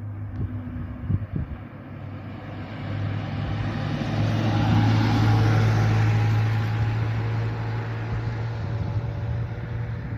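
A motor vehicle running, with a steady low hum. Its noise swells to a peak about halfway through, then eases off.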